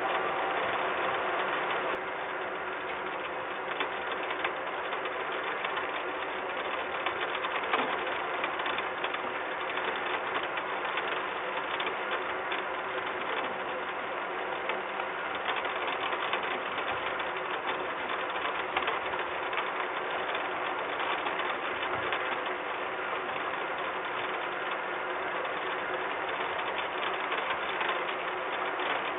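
Rain pattering steadily on a metal nest box and railing: a dense, even crackle of fine ticks, with a faint steady hum underneath.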